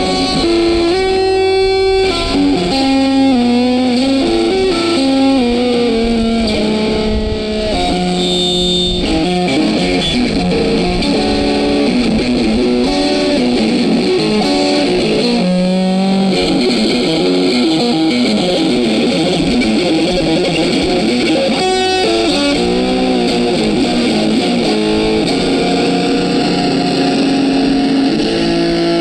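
Music led by an electric guitar with distortion and effects, playing a melody of changing notes over a steady backing.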